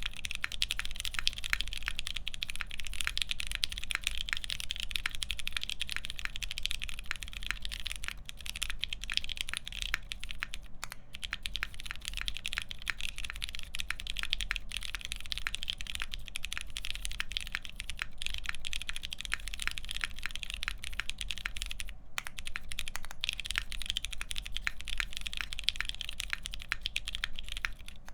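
Continuous fast typing on a custom mechanical keyboard with lubed Pewter switches and PBT keycaps, many dense clicky-thocky keystrokes, with short pauses about 11 and 22 seconds in.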